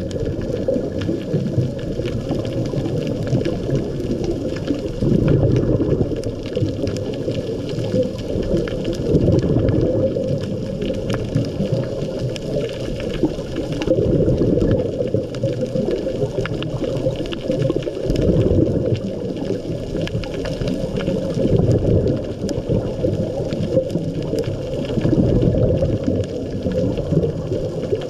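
Muffled underwater sound as heard through a camera housing: a scuba diver's regulator breathing, its exhaled bubbles swelling in a low bubbling about every four seconds.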